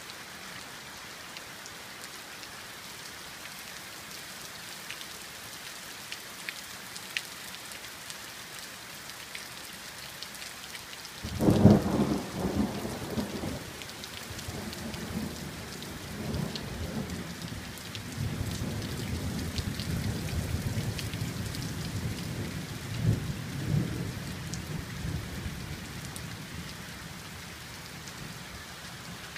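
Steady rain falling, with scattered drip ticks. A little over a third of the way in a sudden clap of thunder breaks out and rumbles on unevenly for about a dozen seconds, with a second loud peak near the end of the rumble, before fading back to just the rain.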